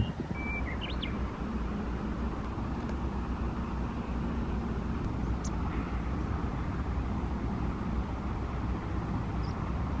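Steady low outdoor rumble, with a few short high bird chirps about a second in.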